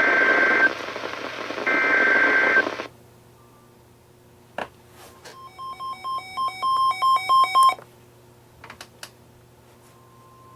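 NOAA Weather Radio alert audio. Two screeching SAME data bursts over radio static stop about three seconds in. After a click, a weather alert receiver's electronic alarm beeps, stepping louder for about three seconds. Near the end the steady 1050 Hz warning alert tone begins and swells, ahead of a tornado warning.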